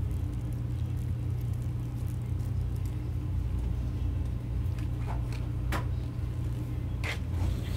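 Steady low machine hum, with a few short clicks about five, six and seven seconds in.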